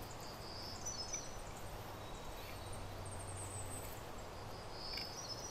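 Steady outdoor background hiss, with a few short, high bird chirps about half a second to a second in and again near the end.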